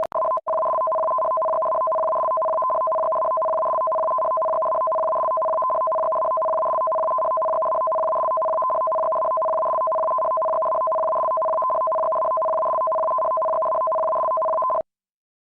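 Broadcast emergency-alert attention signal: two steady tones sounded together, a middle one and a higher one, held without change for about fifteen seconds after a brief break just after the start, then cut off abruptly.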